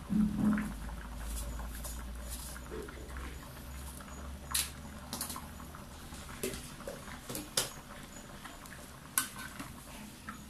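Chicken curry in coconut milk simmering in a steel wok, the thick sauce bubbling with scattered soft pops and clicks. There are a few sharper knocks of a ladle against the wok near the start and the end.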